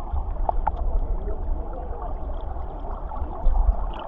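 Water rushing at a waterfall: a steady wash of noise with a low rumble underneath.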